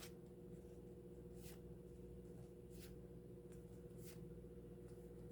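Near silence over a faint steady hum, with three faint, brief rustles from a Yu-Gi-Oh booster pack and its cards being handled.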